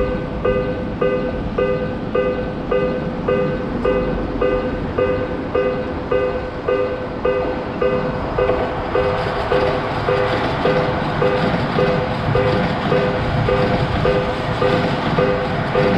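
Japanese level-crossing electronic alarm bell ringing steadily, about two tones a second. From about halfway through, the rushing rumble of a train passing the crossing rises under it.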